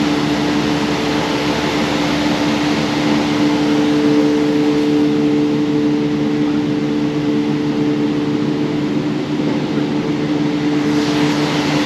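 Steady hum of building air conditioning, with two steady tones running through it.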